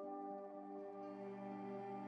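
Calm ambient background music of long, held tones that change slowly.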